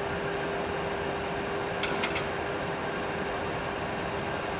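Steady engine and airflow noise in a Boeing 737 Classic full flight simulator's cockpit during the climb after takeoff, with a constant hum under it. Three quick clicks come close together about two seconds in.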